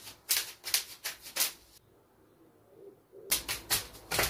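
Bubble wrap popping: a quick run of about six sharp pops as it is pressed by hand, a pause of about a second and a half, then a rapid string of pops with dull thuds as it is stamped on underfoot.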